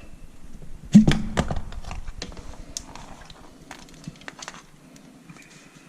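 Hard parts knocking and clicking as they are handled and fitted during the pump's assembly, with one loud knock about a second in, then lighter scattered clicks that fade.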